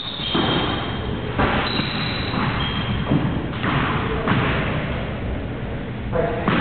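Squash rally: about five sharp thuds of the ball off rackets and the court walls, a second or more apart, with short high squeaks of shoes on the court floor.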